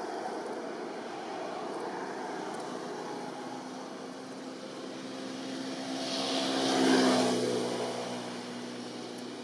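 A motor engine passing by, growing louder to a peak about seven seconds in and then fading, over a steady background rumble.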